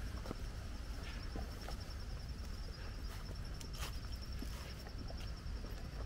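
A high insect trill, made of fast even pulses that run on without a break, over a low rumble, with scattered light footsteps crunching on a leaf-littered dirt path.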